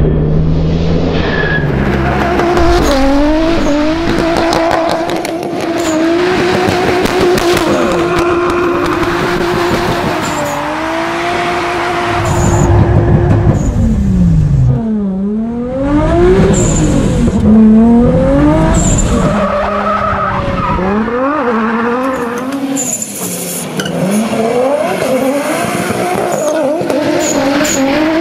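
Toyota Supra drift car's engine revving hard, its pitch climbing and falling over and over with throttle stabs and gear changes, with one sharp drop and climb in revs about halfway through. Tyres squeal as the car slides.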